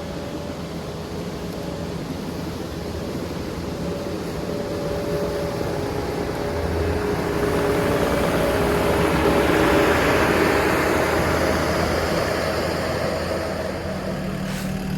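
Case 445 skid steer's engine running under work, with a steady hum and a rushing noise that grows louder toward the middle and then eases off.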